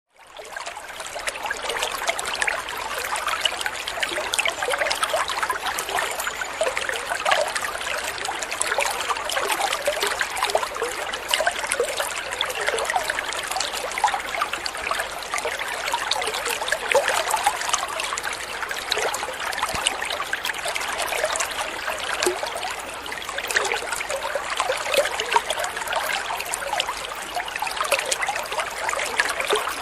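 Shallow running water trickling and splashing steadily, with a dense patter of small bubbling splashes; it fades in over the first second.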